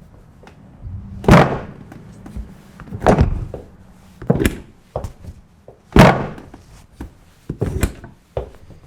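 Heavy thuds on a chiropractic treatment table during a sacrum adjustment: about five sudden slams a second or two apart, the loudest about a second in, about three seconds in and about six seconds in.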